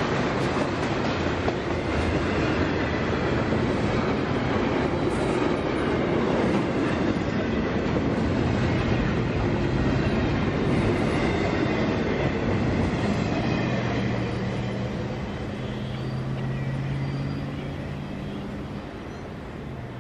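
Freight train's double-stack intermodal well cars rolling on the rails, a steady dense rumble that fades over the last several seconds as the end of the train goes into a tunnel.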